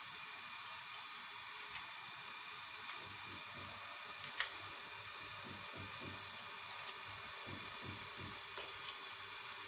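Dried bay leaves being made into small pieces, giving a few soft clicks, the most marked about four seconds in, over a steady hiss.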